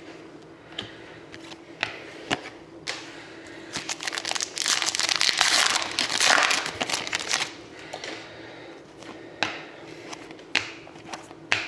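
A trading-card pack wrapper crinkling as it is torn open and handled, loudest and densest for a few seconds in the middle. Scattered light clicks and taps come before and after.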